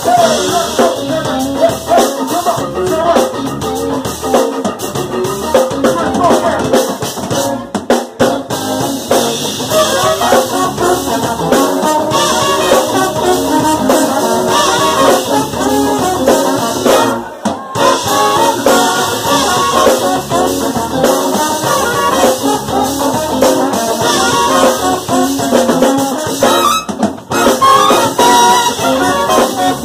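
Funk band playing live and loud: trumpet and trombone horn lines over a drum kit. The sound briefly drops twice.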